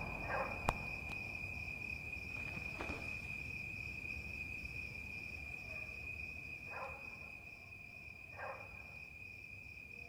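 Quiet cricket ambience: a steady high trill with a faint, evenly pulsing chirp above it. A few soft, brief sounds rise above it now and then.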